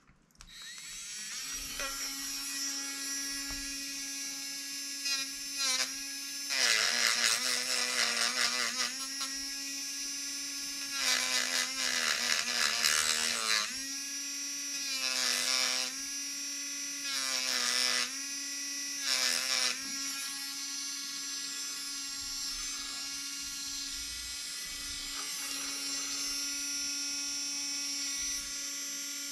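Small pen-style rotary tool starting up about half a second in and running with a steady high whine. About five times, each lasting one to three seconds, it grinds harshly as the bit is pressed to the plastic mount to trim it down, and the motor's pitch sags slightly under the load.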